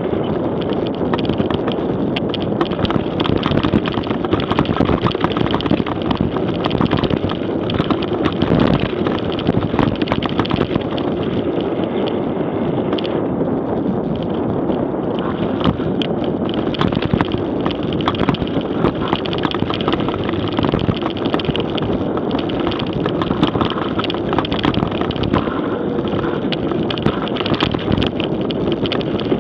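Wind buffeting a Garmin VIRB action camera's microphone as a mountain bike rides fast down a dirt and gravel track, with the steady rumble of the tyres and many short rattles and clicks from the bike over the rough ground.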